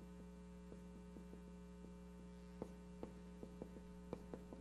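Faint steady electrical hum with soft, uneven clicks of a marker tapping and stroking on a whiteboard as a word is written, more frequent in the second half.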